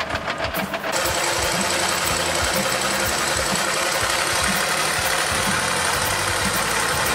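Large off-road rally truck's engine running steadily at idle, starting about a second in.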